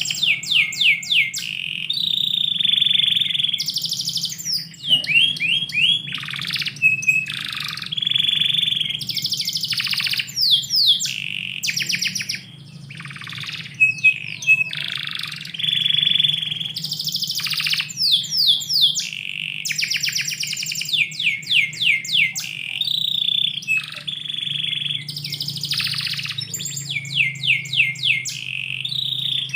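Domestic canary singing continuously, alternating fast trills of rapidly repeated downward-sweeping notes with rolled, buzzy phrases, broken only by brief pauses.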